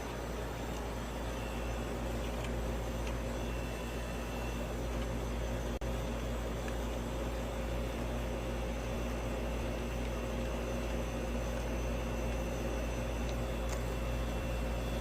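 Outdoor air-conditioning condensing unit running, a steady hum of compressor and fan with a constant tone, briefly cutting out for an instant about six seconds in. The compressor is running only on its hard-start kit, with a run capacitor that reads nothing.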